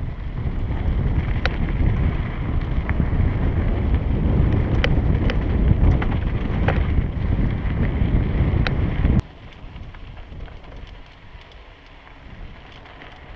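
Wind buffeting a helmet-mounted camera microphone over the rumble of mountain-bike tyres on a loose dirt descent, with scattered sharp ticks of gravel and bike rattle. About nine seconds in the rumble drops off abruptly, leaving quieter tyre and wind noise.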